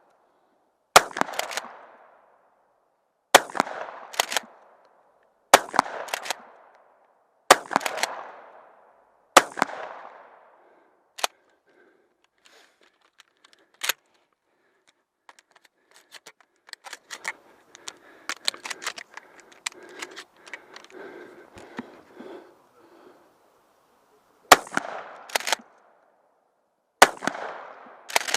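Shotgun firing slugs, five single shots about two seconds apart, each ringing out briefly. A quieter stretch of clicks and rattling follows, then two more shots near the end.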